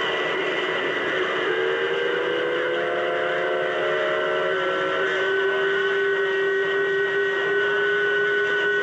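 CB radio receiver on channel 28 hissing with band noise and static, with several steady whistling tones on top: open carriers beating against each other (heterodynes) while the band is open for long-distance skip. Two or three of the tones come in about a second and a half in, drift slowly upward, and drop out near the middle, while a low whistle and a higher one carry on.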